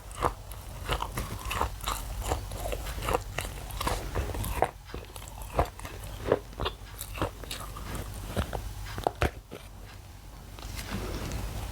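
Close-up crunching of thin, brittle pieces of white shale being bitten and chewed, in many sharp, irregular snaps and crackles. There is a brief lull near the end.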